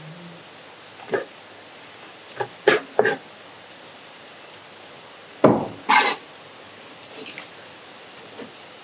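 Kitchen knife chopping and cutting a wet, skinned fish on a cutting board: scattered sharp knocks of the blade hitting the board, with a loud pair about two-thirds of the way through, among soft wet cutting sounds.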